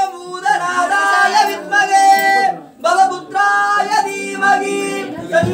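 Devotional singing at an Ayyappan pooja: voices sing in phrases with long held notes, with a short break a little past halfway.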